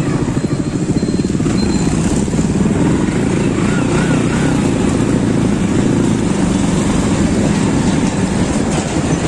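Motorcycle engine running steadily while riding through traffic, heard from the rider's seat, mixed with a constant rush of wind and road noise.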